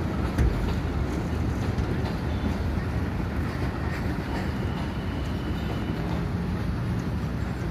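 Diesel-electric locomotive running light and moving slowly over the yard tracks, with a steady low engine rumble.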